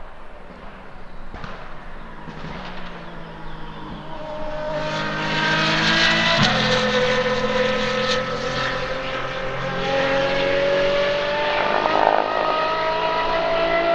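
Apollo Intensa Emozione's 6.3-litre naturally aspirated V12 under acceleration. It is faint for the first few seconds and grows louder about four seconds in. After a gear change about six seconds in, its pitch climbs slowly and steadily as it pulls.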